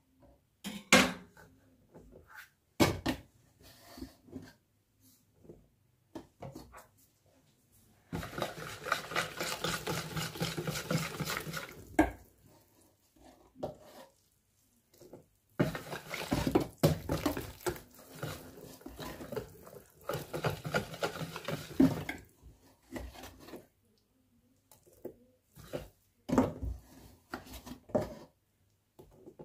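A metal wire whisk stirring flour into liquid in a bowl for a yeast dough, rattling and scraping against the bowl. The whisking comes in two long spells of rapid strokes, with scattered taps and knocks in between.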